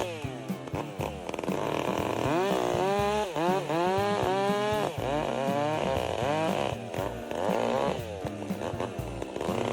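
Two-stroke chainsaw engine revved up and down over and over, its pitch climbing fast, holding briefly, then dropping back between revs.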